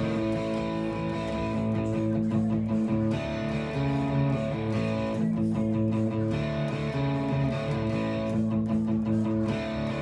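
Fender Vintera '60s Telecaster played through a Fender Mustang GT40 amp on its Brit Color overdrive setting, strumming chords along with the song's recording.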